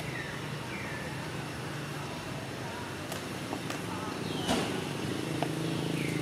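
Outdoor background with a steady low engine hum that grows a little louder after about five seconds. Birds give short falling chirps about once a second, and a few sharp snaps cut through, the loudest about four and a half seconds in.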